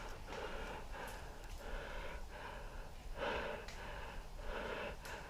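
A person breathing hard and rhythmically close to the microphone, about two breaths a second.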